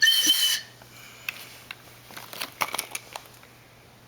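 A short, loud train-whistle blast, the signal to pick the next surprise egg. It is followed by faint clicks and crinkles of plastic eggs and wrappers being handled.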